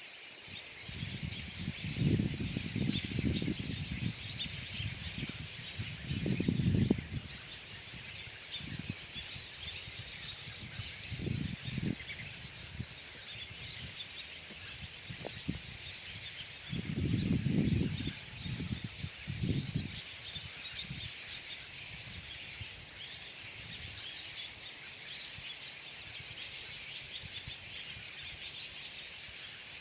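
A flock of birds chirping and calling together, many short calls overlapping without pause while they feed on berries. Low rumbles break in several times, loudest at about two, seven and eighteen seconds in.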